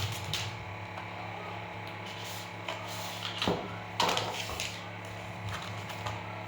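Paper and cardboard packaging handled during unboxing: a few short rustles and scrapes, the loudest about three and a half to four seconds in, over a steady low electrical hum.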